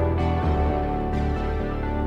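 Background music: sustained pitched notes over a low bass line that changes note every second or so.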